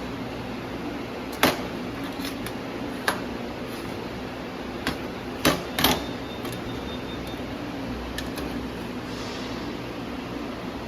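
Steady machine hum of a running laser welding machine, broken by a handful of sharp clicks and knocks at irregular intervals in the first half.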